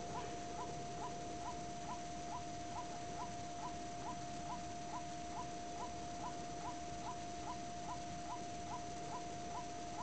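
White-breasted waterhen (kareo) calling: a short, rising note repeated evenly about twice a second, over a steady tone.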